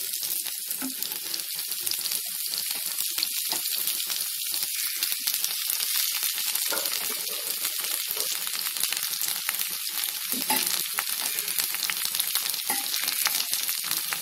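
Oil sizzling in a frying pan as small onions and garlic fry and a heap of sukkan keerai leaves goes in: a steady hiss with many small crackles.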